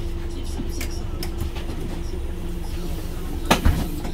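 Scania OmniLink bus's biodiesel engine idling, heard from inside the cabin as a steady low rumble with a constant tone over it. Two sharp knocks come close together about three and a half seconds in.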